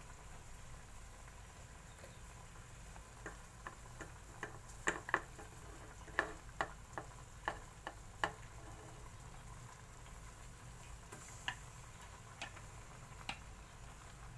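Chopsticks tapping and clicking against a plate and the rim of an aluminium pot as pickled mustard greens are pushed into a simmering braise: a quick run of taps in the middle, a few single taps near the end, over a faint steady hiss from the pot.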